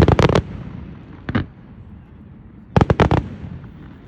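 Fireworks going off in a series of sharp bangs: a rapid cluster at the start, a single bang just over a second in, and another quick cluster near the three-second mark.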